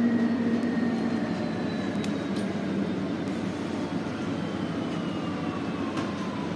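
Inside a 2019 NovaBus LFS Hybrid bus: steady road and drivetrain rumble, with the electric hybrid drive's high whine falling slowly in pitch as the bus slows.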